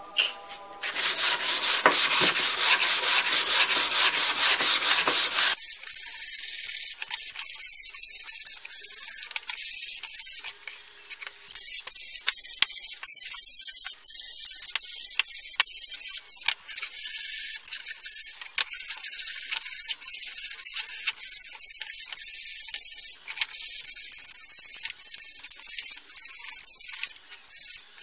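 Sandpaper rubbing on wood in quick back-and-forth strokes. It is louder and fuller for the first few seconds, then turns to a thinner, higher scratching that stops and starts often.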